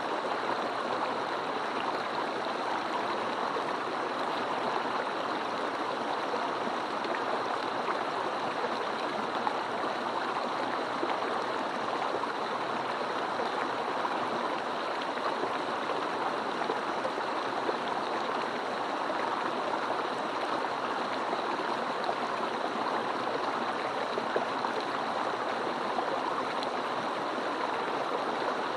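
Mountain stream running steadily, an even rushing and babbling of flowing water.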